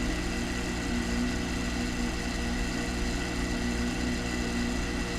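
Steady electrical or mechanical hum with a low tone that pulses on and off.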